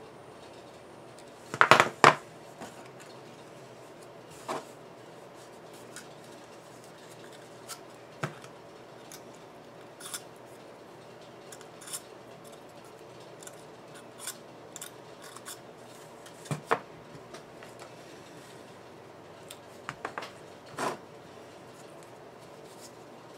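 Sharp clicks of small hand work on a loudspeaker voice coil's magnet-wire leads while the varnish is being cleaned off them: a loud cluster of clicks about two seconds in, then scattered lighter clicks every second or two, with more clusters near the end.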